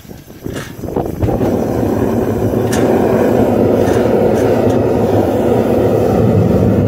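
Propane burner of a Devil Forge FB1SB gas furnace catching about a second in, then running with a steady, low rushing sound as it heats the copper charge in the crucible.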